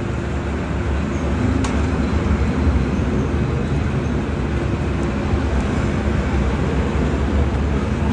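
A small engine running steadily at idle, a continuous low rumble with no change in speed.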